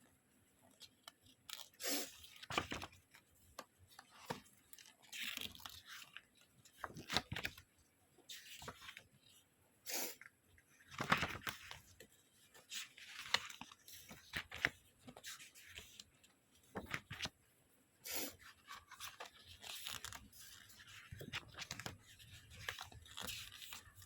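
Packaging being handled and opened: irregular crinkling and tearing of wrapping in short bursts, some sharper crackles among them.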